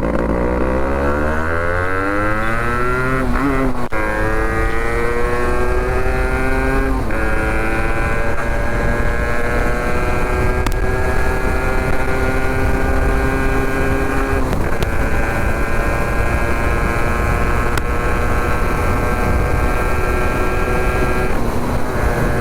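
Yamaha RX two-stroke single-cylinder motorcycle accelerating through the gears, unmuffled by any added music. The pitch climbs, then drops at each of three gear changes spread over the first fifteen seconds, and eases off near the end.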